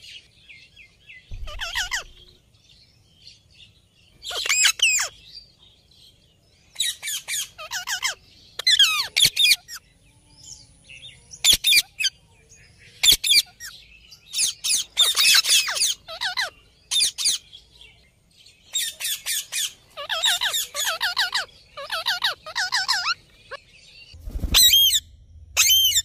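Indian ringneck parakeets calling: loud, shrill, harsh shrieks repeated in quick runs of several notes, in bursts separated by short pauses.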